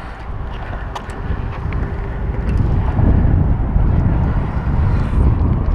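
Wind buffeting the camera microphone: an uneven low rumble that grows louder about three seconds in, with a few faint clicks.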